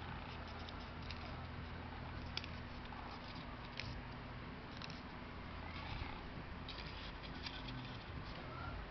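Faint rustling and several short sharp clicks of paper being pinched and folded into petals, over a steady low hum.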